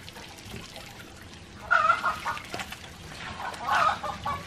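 A chicken calling twice, loudly: once about two seconds in and again near the end. Under it are faint wet sounds of cooked tejocote pulp being squeezed by hand through a cloth bag into a copper pot.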